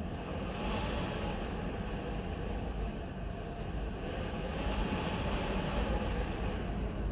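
Typhoon-force wind blowing hard, a deep rumble under a wavering whistle that swells and eases in gusts.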